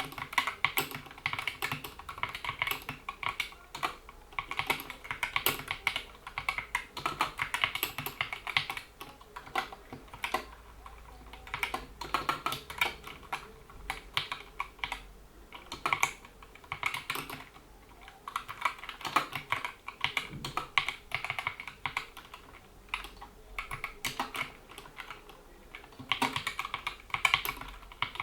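GK61 mechanical keyboard with Gateron optical switches, PBT keycaps and rubber dampening rings, being typed on in fast runs of keystrokes broken by short pauses.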